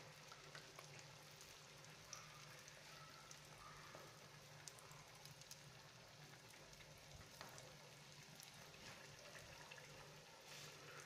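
Faint, steady sizzling and crackling of stuffed potato patties deep-frying in hot oil in a wok.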